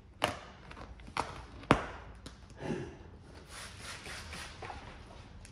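Clear polyurethane protective film crackling as it is stretched and worked around the edges of a plastic part: sharp clicks about a quarter second, one second and just under two seconds in, then a soft rustle.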